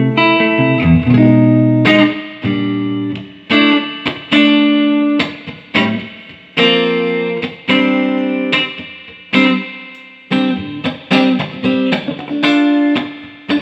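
Electric guitar played through a Fender Hot Rod Deville 2x12 valve combo amp, freshly serviced with new 6L6GC power valves, 12AX7 preamp valves and filter caps. Notes and chords are struck one after another and left to ring and fade.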